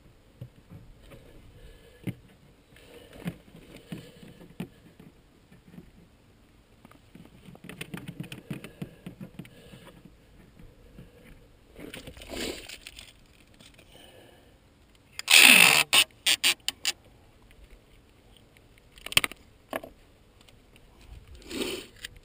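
Handling noise: scattered rustles, scrapes and light knocks, with a loud burst of scraping and rustling followed by a few sharp clicks about two-thirds of the way in.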